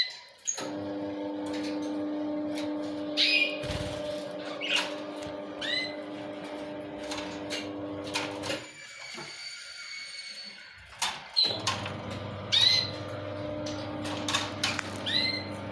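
Lovebirds chirping: short, sharp calls every second or so. Beneath them a steady hum, which stops about halfway through and comes back a few seconds later.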